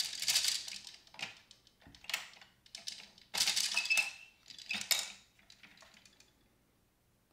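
Plastic gears and tokens of a Downspin game unit clicking and clattering as a key turns a gear, in several short bursts, with a brief squeak midway. The sound dies away near the end.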